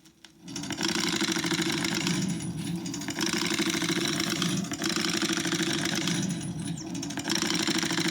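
Gatling gun firing in long, very rapid bursts, a dense rattle of shots. The rattle eases briefly about two and six seconds in.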